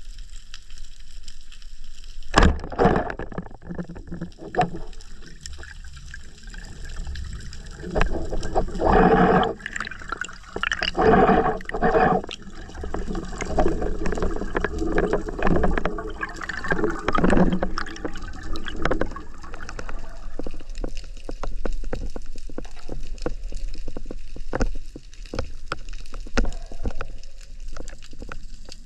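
Wooden speargun fired underwater, a sharp snap about two and a half seconds in, followed by stretches of gurgling, rushing water noise and scattered knocks and clicks.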